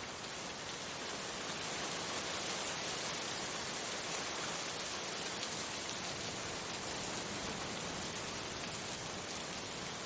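Steady rain falling on a wet surface: an even, unbroken hiss in which no single drops stand out.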